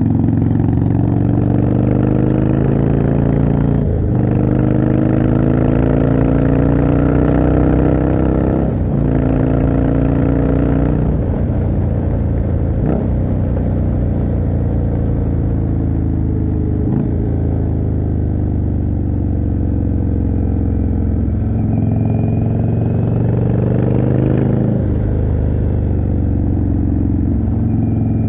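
Indian Chieftain's 1811 cc V-twin running through a Jekill & Hyde exhaust while riding, the engine note climbing in pitch and dropping back several times as the bike pulls through the gears, with wind and road noise under it.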